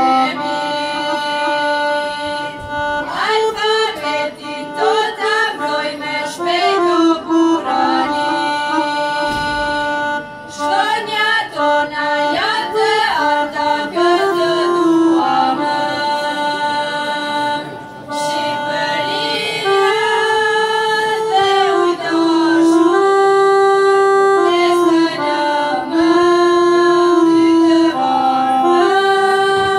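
A group of young singers, mostly girls' voices, singing a song together into microphones over instrumental backing.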